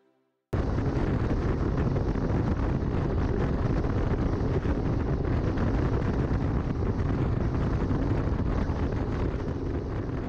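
Heavy wind rumbling and buffeting on the microphone, cutting in abruptly about half a second in and running steadily, easing slightly near the end.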